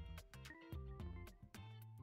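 Instrumental background music with a steady beat and a low bass line.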